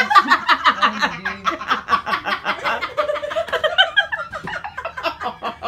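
Women laughing together, a long run of quick repeated laughs that eases off near the end.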